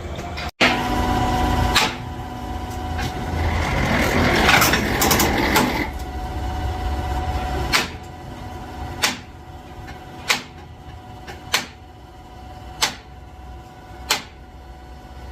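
Workshop machinery running with a steady hum. From about halfway through, a sharp knock repeats evenly about every second and a third, like a machine turning over in a regular cycle.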